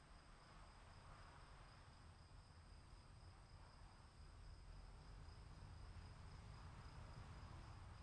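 Faint afternoon-storm ambience: a low rumble under a steady high-pitched insect drone, growing slightly louder about halfway through.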